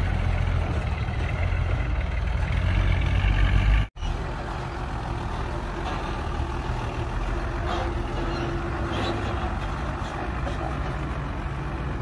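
Hyundai dump truck's diesel engine running with a heavy low rumble. The sound breaks off abruptly about four seconds in and resumes quieter and steadier, with a faint hum.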